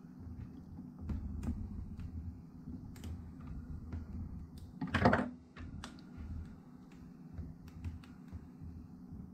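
Plastic screen bezel of a Lenovo ThinkPad T490s being pressed and snapped back onto the display lid: scattered small plastic clicks, with one louder snap about five seconds in.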